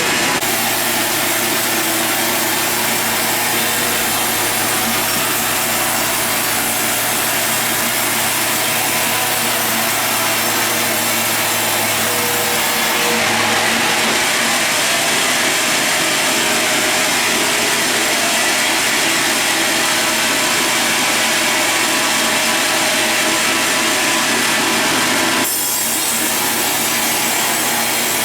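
Sawmill saw cutting lengthwise through a large log, a steady loud sawing noise. It grows hissier about halfway through and changes abruptly near the end.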